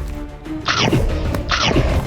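Background music with two short, loud cartoon sound effects, about 0.7 and 1.5 seconds in, each a noisy swish that falls away.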